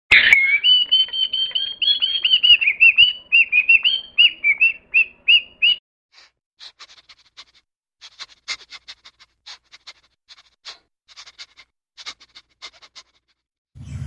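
A grey parrot gives a run of whistled notes for about six seconds: first a longer wavering whistle, then quicker repeated notes. After that come scattered short, sharp clicks.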